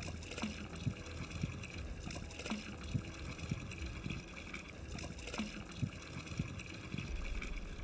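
Water trickling and gurgling from a stone fountain spout, with a few soft irregular knocks.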